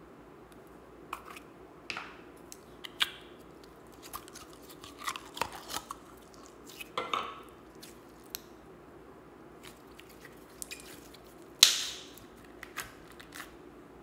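Slime being tipped out of a plastic tub and squeezed by hand: sticky squelches, small clicks and pops in irregular clusters. One louder, sharper pop comes a little before 12 seconds in.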